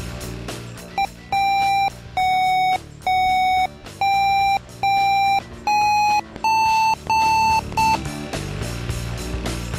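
Electronic beeps repeating about once a second, each a steady tone about half a second long, about nine in all, the pitch stepping up over the last few. They are a satellite antenna's pointing tone, rising as the signal strength climbs. Background music plays underneath.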